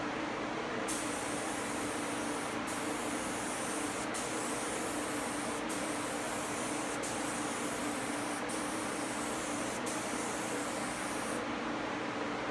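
Compressed-air gravity-feed spray gun hissing in about seven passes, each cut off briefly as the trigger is let go between strokes, spraying sanding sealer onto a cabinet door. A steady hum runs underneath. The spraying starts about a second in and stops about a second before the end.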